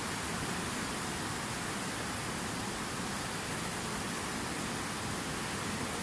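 Swift mountain river rushing over rocks in whitewater rapids: a steady, even rush of water with no single splash standing out.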